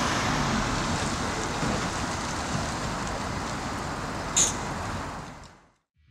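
Steady outdoor street ambience, an even rushing hiss of distant traffic, with one brief high-pitched sound about four seconds in; it fades out near the end.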